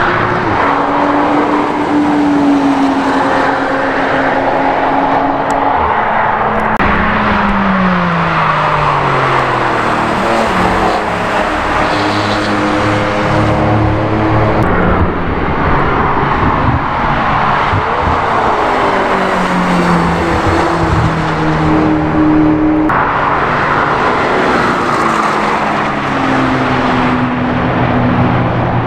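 Sports cars lapping a race circuit at speed, one after another. Each engine note climbs, then drops sharply with gear changes and as the car goes by.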